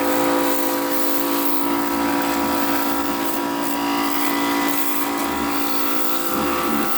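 Small electric pressure washer running steadily, its motor and pump giving a hum of several constant tones under the hiss of the water jet.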